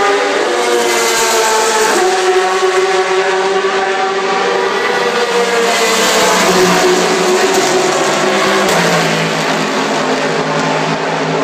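Endurance race cars going by one after another, their engines loud and steady. Each engine note slides down in pitch as the car passes, and a new, higher note cuts in about two seconds in.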